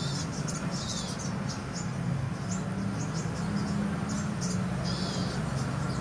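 Small songbirds in a tree chirping and calling back and forth: short high chirps in irregular bursts, several a second at times, over a steady low hum.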